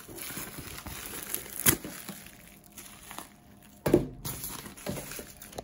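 Plastic packaging and tape crinkling and rustling as a parcel is unwrapped, with a few sharper crackles, the loudest about four seconds in.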